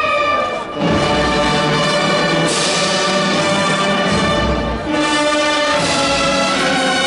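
Brass band playing a slow Holy Week funeral march in long, sustained chords that change every second or two.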